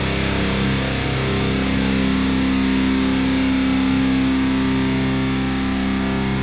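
Background rock music with distorted electric guitar, playing held chords at a steady level.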